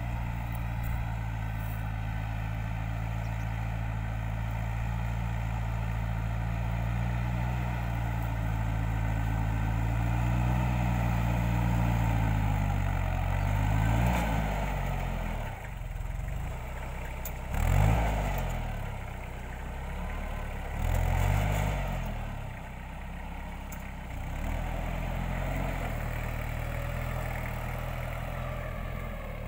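VST Shakti 932 compact tractor's diesel engine working under load as it pulls a mounted implement through the field. It runs steadily at first, then rises and falls in pitch three times in the second half, loudest about eighteen seconds in.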